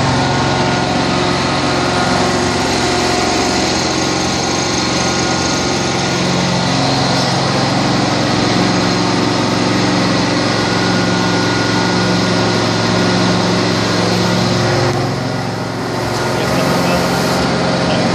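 Prochem Legend SE truckmount carpet-cleaning machine running steadily: its 22 hp engine and Sutorbilt vacuum blower make a loud, even drone with a hiss over it. The level dips briefly near the end.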